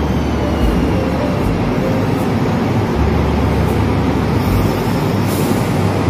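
KTM Komuter electric train pulling into a platform and slowing to a stop: a steady rumble with a faint whine that falls in pitch in the first second.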